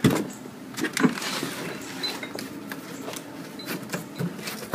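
Cardboard shipping box and its packing being handled and pulled open: a knock at the start, rustling and scraping of cardboard, and scattered light clicks.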